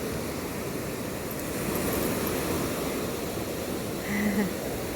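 Ocean surf washing on the beach, a steady rush that swells about two seconds in. A brief pitched sound comes about four seconds in.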